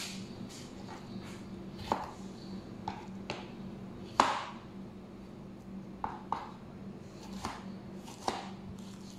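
A kitchen knife chopping a green chili on a plastic cutting board: about eight sharp, irregular knocks of the blade on the board, the loudest about four seconds in, over a steady low hum.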